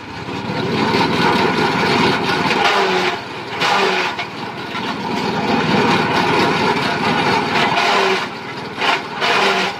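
Engine-driven JG 125 forage chopper running and shredding leafy branches fed into its chute, the noise swelling and easing as material goes through, with brief lulls about three seconds in and again near the end.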